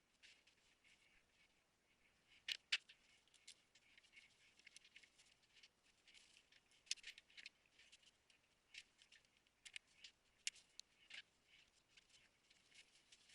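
Near silence with faint, scattered clicks and rustles, the two sharpest about two and a half seconds in; no engine running.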